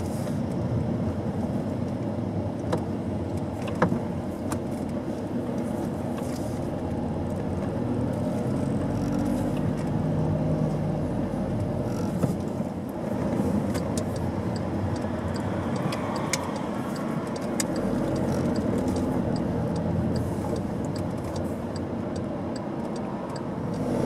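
Car driving at low speed, heard from inside the cabin: steady engine and road noise with a few small knocks. A light, regular ticking runs through the second half.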